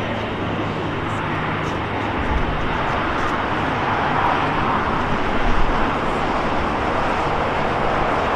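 Steady roar of jet engines from airliners taxiing on the airfield, mixed with road traffic noise, swelling slightly toward the end.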